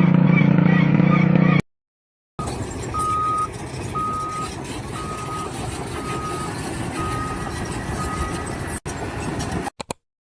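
A loud machine drone with a steady low hum, cut off suddenly under two seconds in. After a brief silence, a vehicle's reversing alarm beeps about once a second, six times, over steady engine and site noise.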